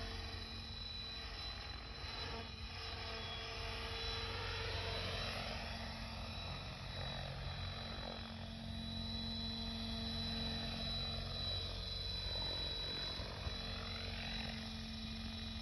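Mikado Logo 800 Xxtreme electric RC helicopter in flight: a steady whine from its motor and rotor, its pitch gliding up and down as it passes by and manoeuvres.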